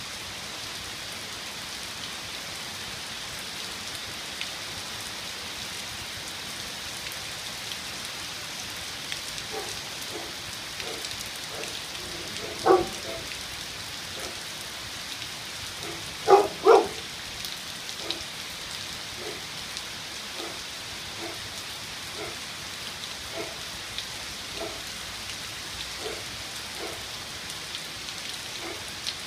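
Steady rain falling on pavement, lawn and street, a continuous hiss of the downpour. From about a third of the way in, a string of short faint sounds comes through the rain, three of them louder near the middle.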